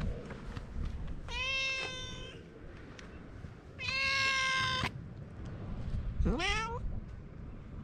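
Stray cat meowing three times: two long, level meows about two seconds apart, then a short meow that rises in pitch near the end. A low wind rumble on the microphone runs underneath.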